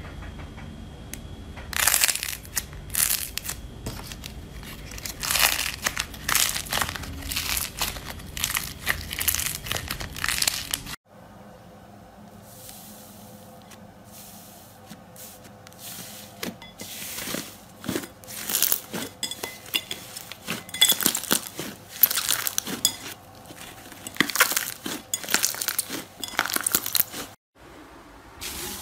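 Slime being squeezed and pressed by hand: dense runs of sticky crackles and small pops. They break off sharply about eleven seconds in, start again softly and grow busier from about sixteen seconds.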